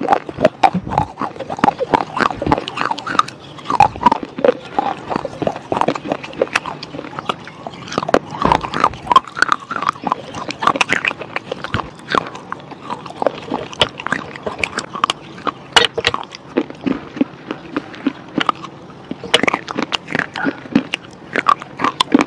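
Red slate bars being bitten and chewed by mouthfuls: a dense, irregular run of sharp crunches and crackles with wet mouth sounds.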